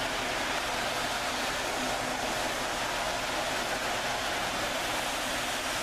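Steady, even whir of several model trains running around the layout, with no separate clicks or rail joints standing out.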